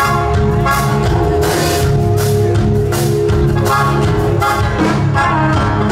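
A live band playing an instrumental passage: electric and acoustic guitars over a drum kit keeping a steady beat.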